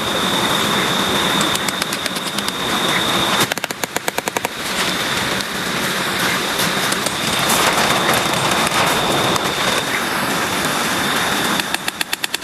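Heavy rain falling steadily, with a constant high whine over it. Twice, once about a third of the way in and again near the end, comes about a second of rapid, even ticking.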